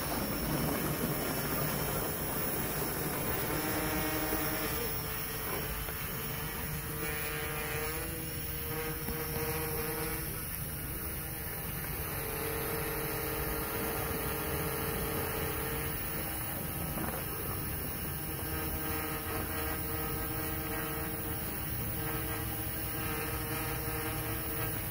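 Small quadcopter drone's propellers buzzing in flight: a steady hum whose pitch holds for a few seconds at a time and then shifts, over a constant hiss.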